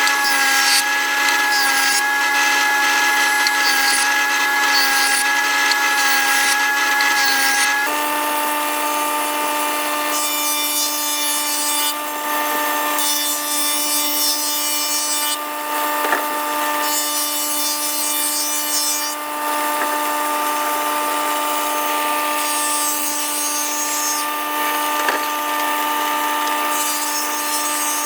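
Electric power tool working wood: a steady motor whine that steps up slightly in pitch about eight seconds in, with scraping noise from the cutting or abrading coming and going over it.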